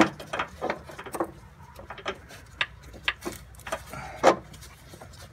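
Scattered light clicks and knocks of hands and parts as a clutch master cylinder is worked loose in a Honda Civic's engine bay, with a somewhat louder knock about four seconds in.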